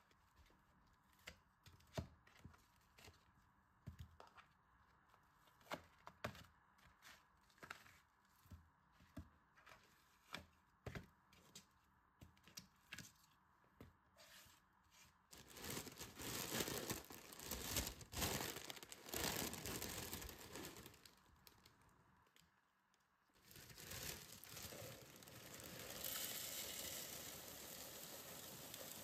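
Soft scattered taps and knocks for about the first half, then a stretch of plastic crinkling and tearing. Near the end, crisp rice cereal is poured into a plastic food processor bowl with a steady dry hiss.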